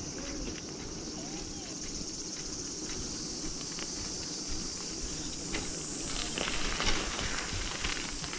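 Insects chirring steadily, over the low rumble and rattle of a bicycle and its wire basket rolling over a concrete path, with scattered clicks and knocks from the bike growing more frequent in the second half.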